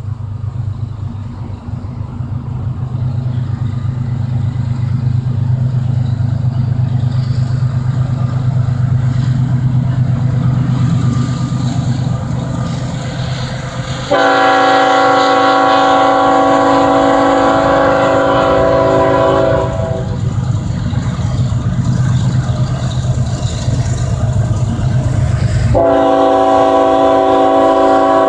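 Union Pacific diesel locomotive approaching, its engine a low rumble that grows steadily louder. Halfway through, its air horn sounds one long blast of about six seconds, a chord of several notes. A second blast starts near the end.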